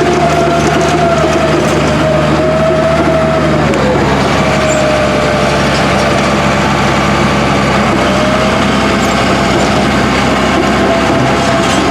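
Engine of old heavy equipment running steadily, with a wavering whine above the engine note; the engine note shifts slightly about four seconds in.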